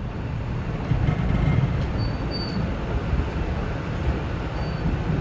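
Steady running noise inside an electric passenger train on the move: a low rumble of wheels on rail. A faint, brief high tone comes about two seconds in and again near the end.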